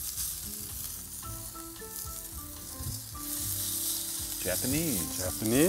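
Wagyu steak pieces sizzling steadily in a hot pan.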